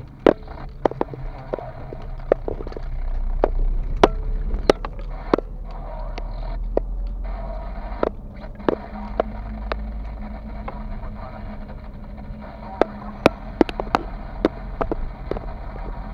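Car driving, heard from inside the cabin: a low steady rumble of engine and road noise, swelling a little a few seconds in, with many sharp irregular clicks and ticks over it.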